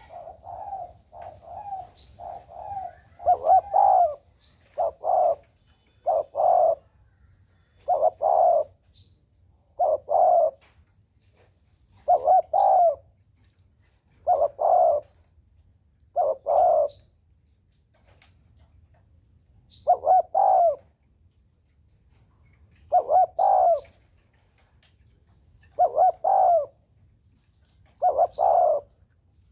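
Spotted dove giving its rounded bow-coo, repeated notes mostly in pairs about every two seconds. Short, faint, falling high chirps from a five-colour sunbird come between the coos, over a faint steady high whine.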